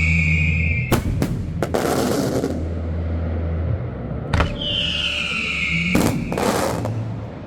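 Fireworks: a whistle falling in pitch, then several sharp bangs about a second in with a crackling hiss. A second falling whistle is followed by more bangs near the end.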